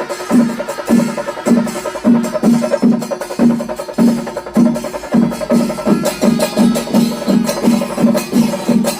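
Chenda melam: Kerala chenda drums beaten in a steady, even rhythm of about two to three strokes a second, with a high metallic clashing of cymbals over the beat.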